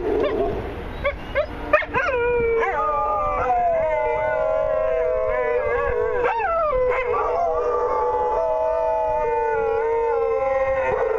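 Three dogs howling together in chorus, long overlapping howls held at different pitches. A few sharp yips come about a second in.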